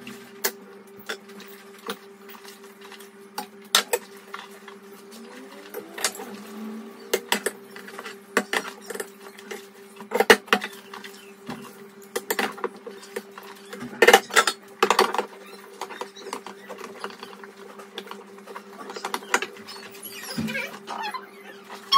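Dishes being washed by hand at a kitchen sink: scattered clinks and knocks of pots, a glass lid and utensils against each other and the sink, loudest about ten seconds in and again around fourteen to fifteen seconds, over a steady low hum.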